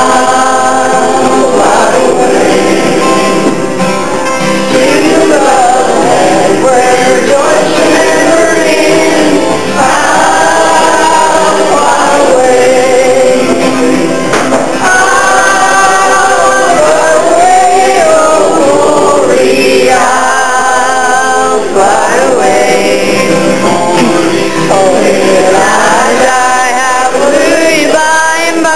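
Gospel song sung by male voices with instrumental accompaniment.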